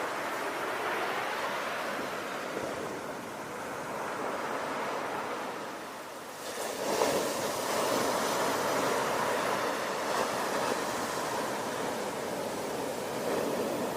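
Ocean surf: a steady rush of waves that eases off a little and then swells as a wave breaks about halfway through, followed by a louder wash.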